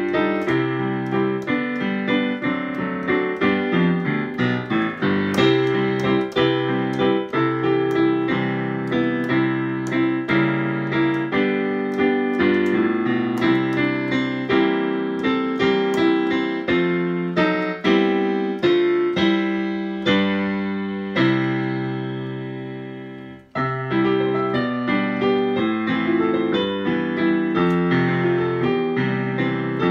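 Digital piano played in a piano voice, a melody over chords. About 21 s in a chord is held and dies away, and after a brief break near 23 s the playing starts again.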